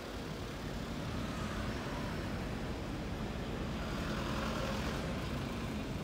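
Street traffic noise, with a car passing close by about four seconds in.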